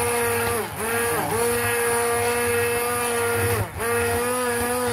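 Electric hand blender running in a glass jug of strawberry purée, its motor humming steadily as the blade purées the fruit. Twice the motor briefly winds down and speeds back up, about a second in and again near the end.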